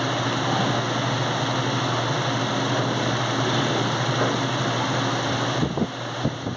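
Steady loud mechanical hum and rush, like a ventilation or air-conditioning fan running. Near the end the hum drops away and a few sharp knocks begin.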